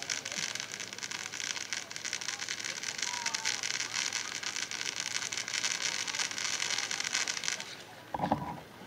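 Black Cat Devil's Poison firework fountain spraying sparks with a dense, steady crackle. It cuts off a little before the end.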